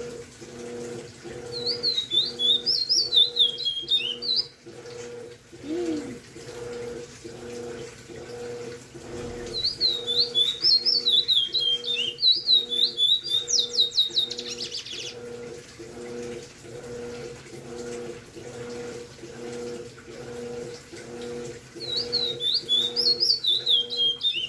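A caged songbird sings three bursts of quick, high, slurred whistles, the middle one ending in a fast buzzy trill. A low hum pulses steadily underneath.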